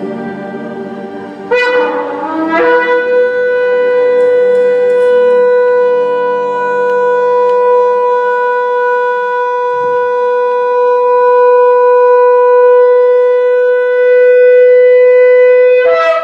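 A shofar blown in one long unbroken blast of about fourteen seconds. It starts on a brief lower, wavering note that jumps up to a steady bright note, held level, then cuts off abruptly. Sung worship fades out just before the blast begins.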